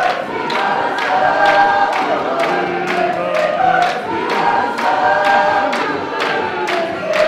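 Congregation singing a hymn together as a choir, with sharp beats about two a second keeping time.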